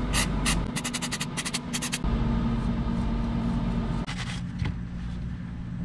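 Stiff-bristled brush scrubbing paint remover and softened paint off a die-cast toy truck body: quick scratchy strokes, a fast run of them in the first two seconds and a few more around four seconds, over a steady low hum.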